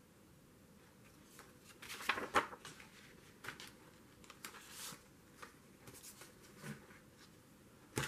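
A glossy paper brochure being unfolded and handled, with papery rustles and crackles. The loudest comes about two seconds in, and lighter ones are scattered after it.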